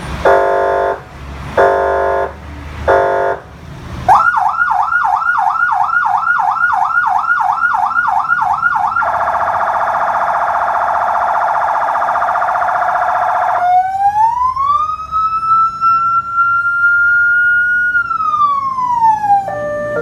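Electronic emergency-vehicle siren run through its tones: three short horn blasts, then a fast yelp of about three sweeps a second, then a very rapid warble, and finally a slow wail that rises, holds steady and falls away near the end.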